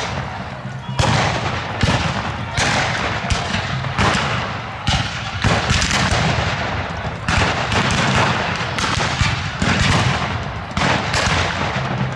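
Black-powder gunfire from a re-enactment battle: an irregular string of shots, often one or two a second and sometimes overlapping, each echoing briefly.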